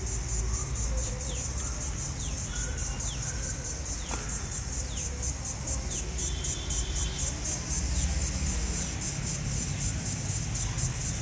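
Insects calling in a rapid, even pulsing, high-pitched and continuous, with a few short falling bird chirps over it and a low rumble beneath.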